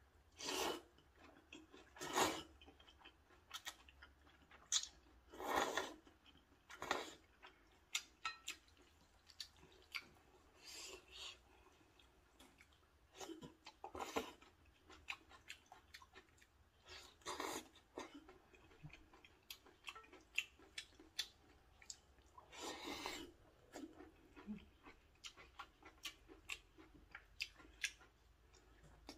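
A person slurping and chewing maratang noodles: several half-second slurps spread through, with soft chewing and many small sharp clicks between.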